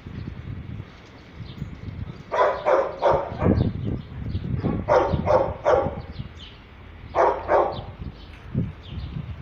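Shelter dogs barking in short runs of quick barks, three runs about two, five and seven seconds in.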